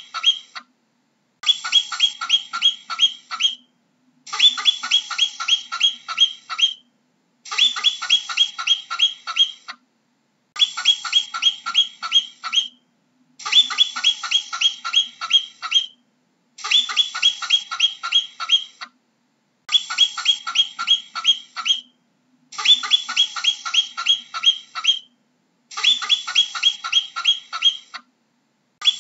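Marmot calling in quick runs of short, sharp, high-pitched calls, about four a second. Each run lasts about two seconds, then a brief silence, and the same run comes back about every three seconds.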